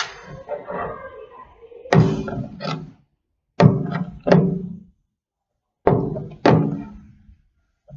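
Three pairs of dull thunks, each with a short ring, the pairs about two seconds apart, like a hard object being knocked or set down.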